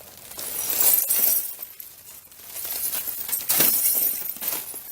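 Broken plasma-screen glass crunching and scraping as a layer of the smashed TV is pulled off, in two surges a couple of seconds apart.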